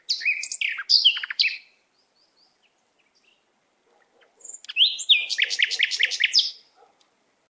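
A songbird singing two phrases of clear whistled notes. The first is a short burst of falling notes at the start. After a pause of about three seconds comes a longer run of rapid falling notes, around six a second.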